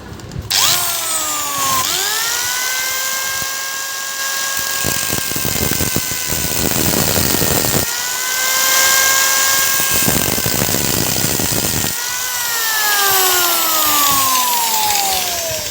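A handheld electric cutting machine spins up with a rising whine and cuts slots into jammed screw heads on a mixer grinder motor, with a gritty grinding hiss over the motor. The pitch dips briefly under load twice, and in the last few seconds the tool winds down with a falling whine.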